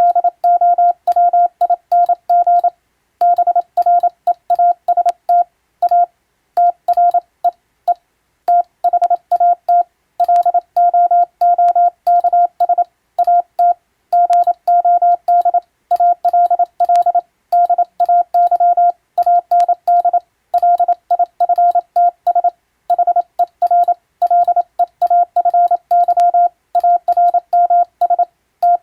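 Morse code sent as an English-language radiotelegram: a single steady mid-pitched tone keyed rapidly on and off in dots and dashes, with short gaps between characters and words.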